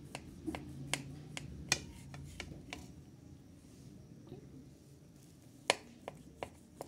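Knife blade clicking against a ceramic plate while slicing through a soft sponge cake: a scatter of sharp, irregular ticks, thickest in the first few seconds and again near the end.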